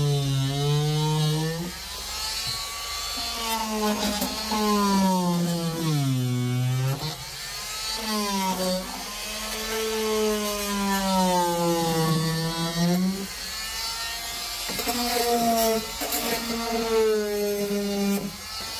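A variable-speed oscillating multi-tool with a flexible scraper blade, stripping old rubber sound-deadening coating off a car's floor. Its buzzing hum sags in pitch and recovers as the blade is pushed into the coating. It stops briefly several times between passes.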